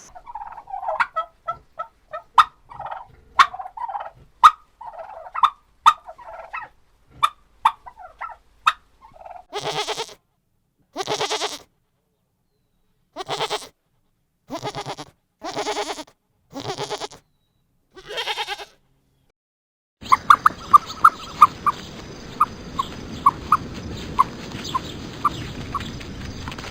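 Farm animal calls from several animals in turn. First comes a run of quick, short calls, then seven longer calls with pauses between them. Near the end a new section starts with a steady hiss and rapid, short high calls.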